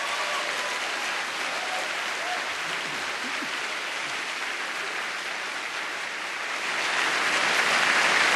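Large audience applauding, a dense steady clapping that swells louder near the end.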